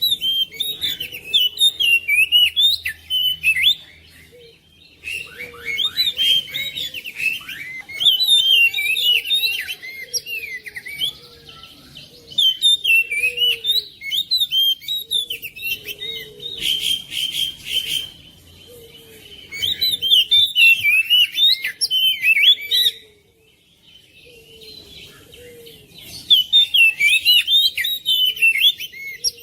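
Oriental magpie-robin (kacer) singing: rapid, varied phrases of high whistles and chirps in bursts a few seconds long, with short breaks about four seconds in and again about two-thirds of the way through.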